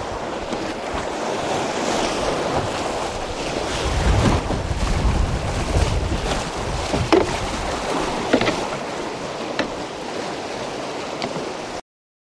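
Whitewater rapids rushing steadily, with wind buffeting the microphone in gusts. A few short splashes come in the second half, and the sound cuts off abruptly just before the end.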